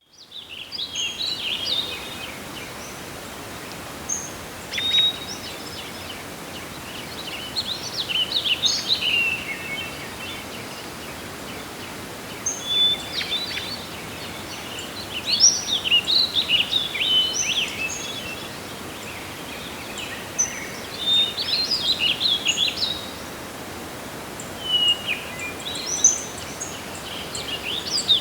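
Forest ambience: several small songbirds singing and chirping in bursts every few seconds, high and quick, over a steady rush of wind.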